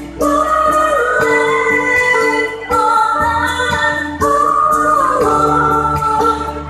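A young woman singing a traditional East Kalimantan song through a PA, in long held notes that slide in pitch, over accompaniment with a steady bass and beat.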